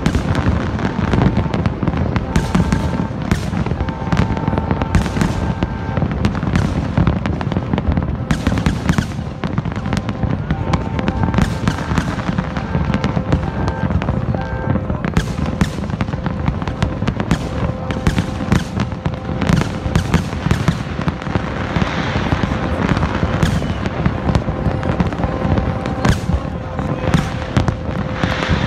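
A large fireworks display: a dense, unbroken stream of shells bursting, booming and crackling. Steady held tones sound at times underneath the bursts.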